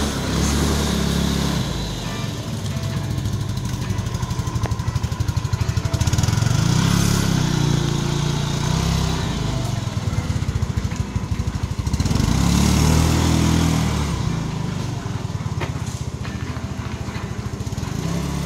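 Small motor scooter engine running and revving up three times, the pitch climbing with each opening of the throttle as it pulls away and rides on.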